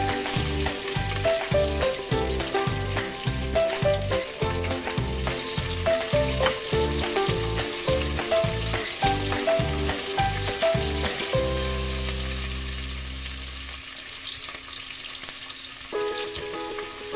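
Diced onion and garlic sizzling in oil in a wok, stirred with a spatula. Background music with a steady beat plays over it and drops out for a couple of seconds near the end, leaving only the sizzle.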